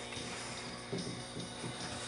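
Faint background music with a few light mechanical clicks about a second in and near the end.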